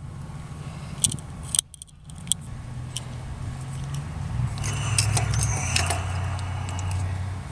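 Light metallic jingling and a few sharp clicks, over a steady low vehicle rumble that swells louder in the second half with some thin high tones, then eases off near the end.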